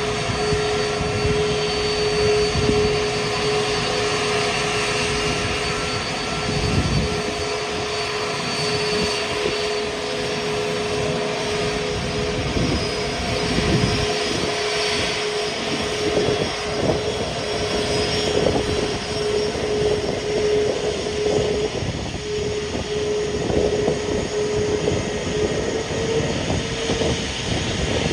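Jet airliner engines running at taxi power: a steady whine over a rough rumble, the whine creeping up in pitch near the end.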